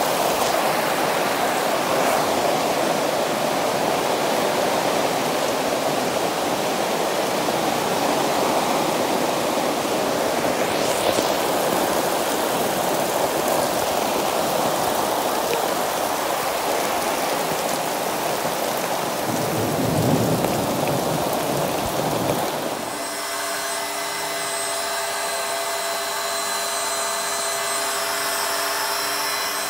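Heavy rain pouring down on a campsite and tent: a loud, steady hiss. About three-quarters of the way through it cuts to a small electric motor running with a steady hum, an electric air pump.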